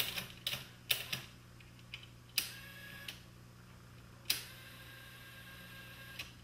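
Technics RS-M275 cassette deck's transport mechanism switching modes: a run of light clicks, a clunk about two and a half seconds in with a short whir, then another clunk about four seconds in and a steady faint whir of the reel drive. The transport is working again now that its slipping drive belt has been treated with a rosin anti-slip compound.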